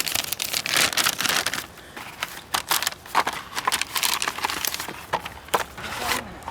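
Plastic MRE packaging being torn open and handled: irregular crinkling with many sharp crackles.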